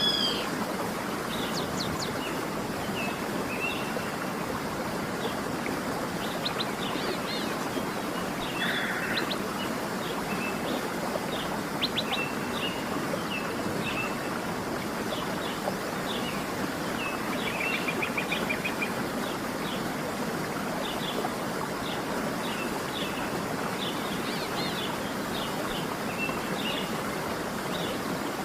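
Waterfall's steady rush of water, with small birds chirping and whistling in short calls over it throughout and a quick trill near the middle.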